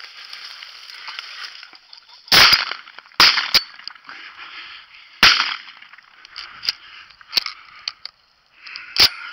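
Shotgun shots at a flushed pheasant: loud reports about two, three and five seconds in, then small metallic clicks as shells are loaded into a Browning A5 semi-automatic shotgun, and another sharp crack near the end.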